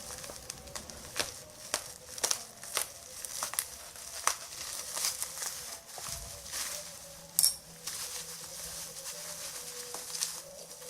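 Crinkling and irregular sharp clicks from a smartphone and its plastic packaging being handled, with one sharper click about seven seconds in.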